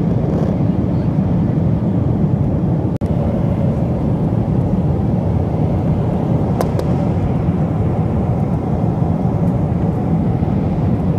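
Steady low rumble of an airliner's engines and airflow, heard from inside the passenger cabin, with a brief break about three seconds in.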